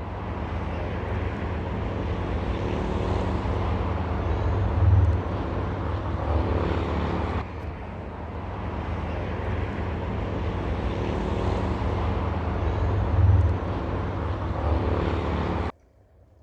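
Loud, steady engine-like drone with a strong low hum and a pitched whine. It swells briefly twice and cuts off suddenly near the end.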